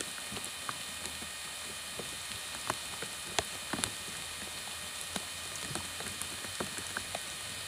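Steady rain hiss with scattered sharp taps of drops landing close by.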